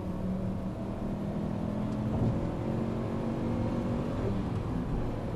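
Turbocharged Subaru flat-four engine pulling hard in third gear under full acceleration, heard from inside the cabin. The car runs a catless up-pipe and has an exhaust leak.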